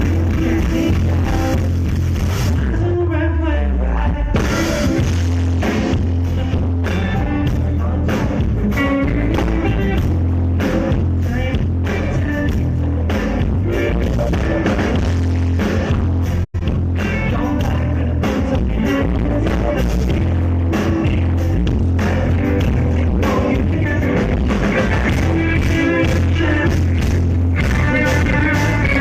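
Live rock band playing loudly through a PA with a singer, heavy steady bass and guitar. The sound cuts out for an instant about halfway through.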